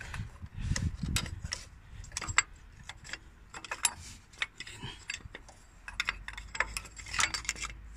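Irregular light metallic clicks and taps of hand tools working the piston pin and its lock clip out of a truck air compressor's piston.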